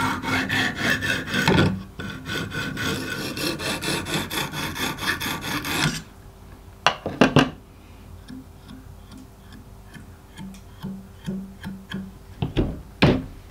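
Lansky guided knife sharpener: a coarse oiled hone on its guide rod is stroked rapidly back and forth along a filleting knife's edge, a quick rhythmic rasping that stops about six seconds in. After that come a few sharp clicks and taps.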